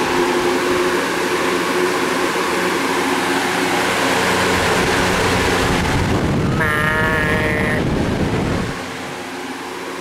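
Lasko 20-inch three-speed box fan running on its highest speed: a steady rush of air with a faint hum. About six seconds in a deep rumble of wind buffets the microphone as it nears the grille, and a brief wavering whine sounds about a second later.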